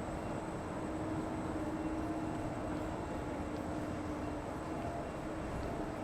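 Steady machinery noise from a carpet-tile PVC backing production line running, with a constant low hum tone and a faint high whine over it.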